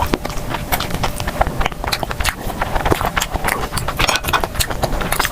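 Close-miked eating: chewing and crunching, with many irregular, quick mouth clicks.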